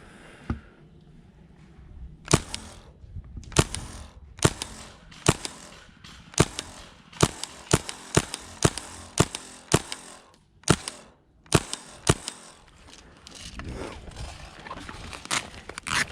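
Airsoft gun firing single shots: about fifteen sharp cracks at uneven spacing, coming roughly twice a second in a quicker run near the middle.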